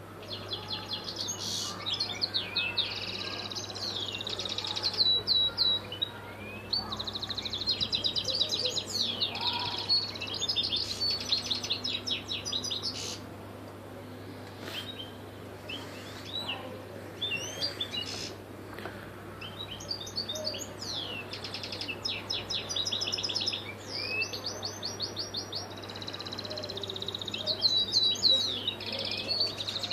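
European goldfinch singing: long phrases of fast, twittering chirps and trills, thinning to scattered calls for several seconds around the middle before full song resumes.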